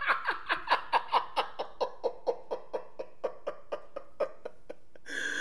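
A man laughing hard in one long fit: a fast run of high, falling laugh pulses, about four or five a second, that slows and fades away, with a short hiss near the end.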